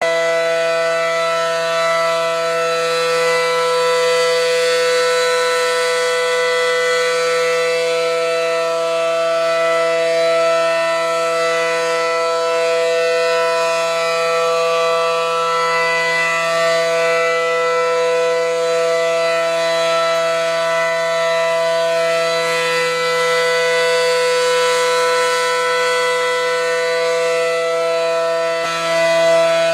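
Air raid siren sounding one steady, loud low tone with many overtones, holding the same pitch rather than winding up and down; it dips briefly near the end.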